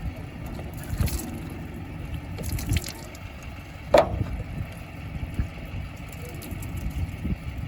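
JCB 3DX backhoe loader's diesel engine running with a steady low rumble, with a few light knocks and one loud, sharp metal clank about four seconds in.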